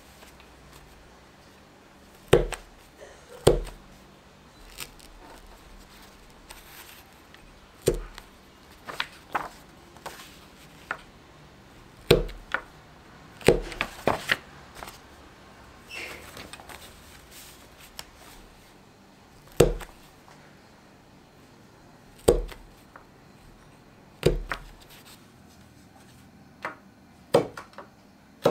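Folded paper signatures being handled and shifted, with about ten sharp knocks against the wooden work table at irregular intervals, while binding holes are pierced with an awl.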